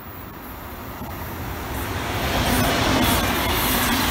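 Deutsche Bahn ICE high-speed train approaching and running past on the track. The sound of wheels on rail grows louder over the first two to three seconds, then holds steady, with a low hum underneath.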